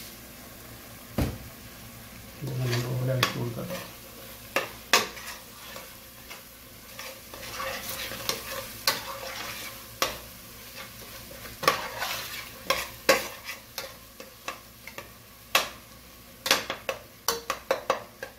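A metal ladle stirring frying onion-tomato masala in a large stainless steel pot, with sharp scrapes and knocks against the pot's sides over a steady sizzle. Near the end the knocks come quickly, several a second.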